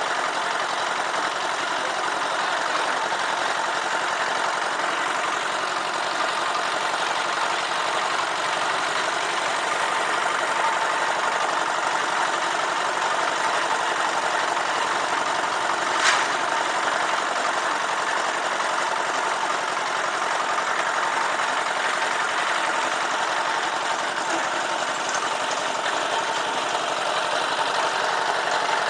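Portable drum concrete mixer's small single-cylinder stationary engine running steadily. One sharp knock about halfway through.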